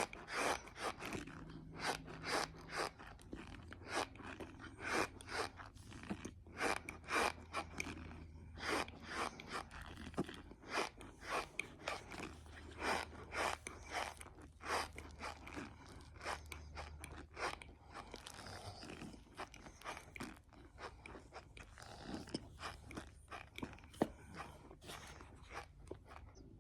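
A mouthful of dry cornstarch being chewed close to the microphone: squeaky, crunchy bites in quick succession, several a second, thinning out in the last several seconds.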